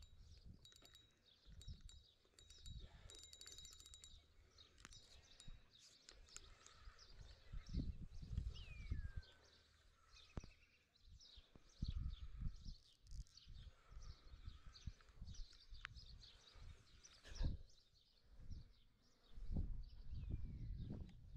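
Small birds chirping and calling, with a few quick falling whistles, over intermittent low rumbles.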